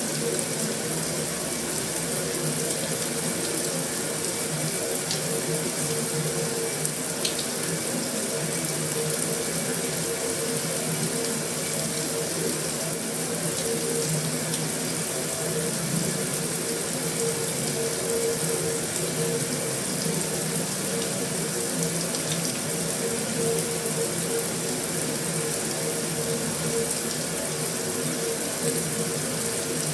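Heavy rain falling steadily on a metal roof: an even, unbroken hiss with a faint low hum underneath and a few light ticks.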